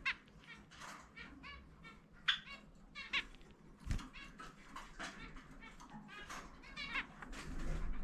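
Zebra finches, a parent and its young, calling back and forth in a steady run of short calls, about two a second. A dull knock comes about four seconds in.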